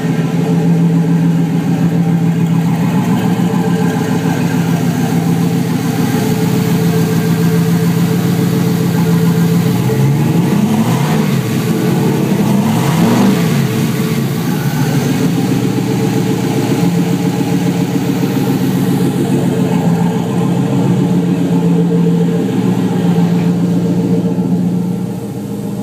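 Freshly rebuilt 5.3-litre LS V8, a gen 3 block with gen 4 rods and pistons, running on MicroSquirt 2 engine management with waste-spark ignition. It idles steadily and is given a couple of quick revs about halfway through.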